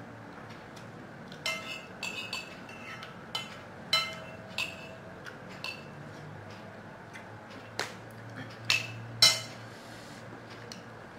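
A spoon clinking and tapping against a plate and bowls as someone eats: about a dozen sharp, irregular clinks with a brief ring, the loudest two a little after the middle.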